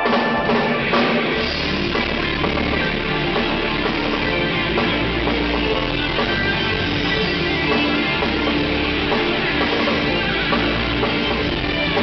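A live rock band playing: electric guitar, bass guitar, drum kit and keyboards. The full band comes in together right at the start.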